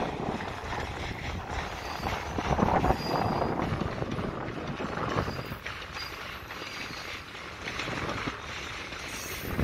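Loaded iron ore freight wagons rolling past on the rails, a steady rumble and clatter of wheels, with faint brief wheel squeals now and then.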